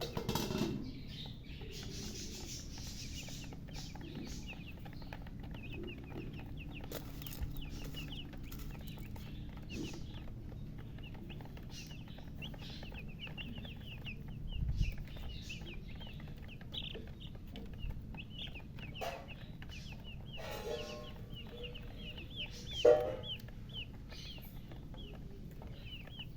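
Newly hatched chicks peeping without a break: many short, high chirps that drop in pitch, several a second. A few louder, lower sounds break in, the loudest a sharp one about three quarters of the way through.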